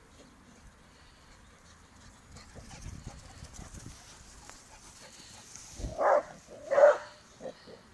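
Bearded Collie barking at play: two loud barks, a little under a second apart, about six seconds in, followed by a couple of softer short ones.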